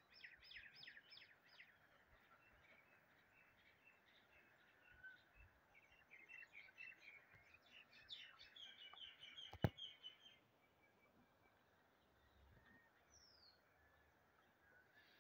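Faint chirping of small birds in quick runs of short, high notes, with one sharp click a little before ten seconds in.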